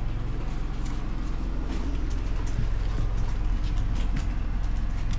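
Steady low drone of a generator running, with a few scattered light clicks of a knife cutting an onion on a plastic cutting board.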